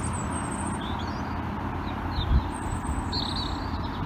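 Small birds chirping in short, high calls, a few times, over a steady low rumble of wind on the microphone, with one brief gust-like thump about two seconds in.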